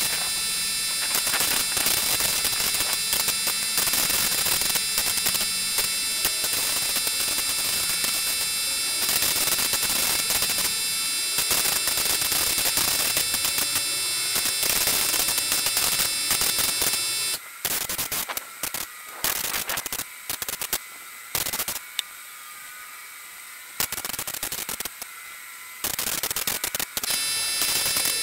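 Compressed air hissing through a DeVilbiss FinishLine HVLP spray gun as it lays a coat of paint, a steady hiss with a thin whistle in it. After about seventeen seconds the hiss starts and stops in short spurts as the trigger is pulled and let go between passes.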